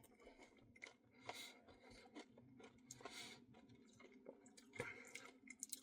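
Near silence, broken by a few faint clicks and soft short scrapes of eating.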